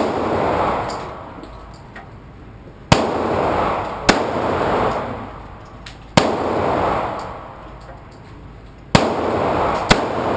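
A 9mm Smith & Wesson semi-automatic pistol firing about six single shots at uneven intervals, a second or more apart, each shot followed by a long echo.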